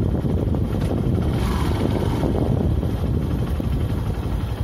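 Yamaha motorcycle engine running as the bike rides along a rough dirt track, a steady low rumble with a broad swell of hiss about a second and a half in.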